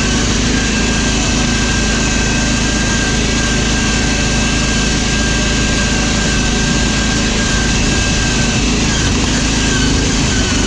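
Riding lawn mower's engine running steadily as the mower is driven along, heard close up from the driver's seat, with a constant whine over the engine drone.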